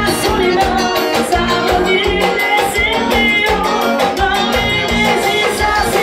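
Loud live forró band music: drums keeping a fast, even beat under a female singer and band.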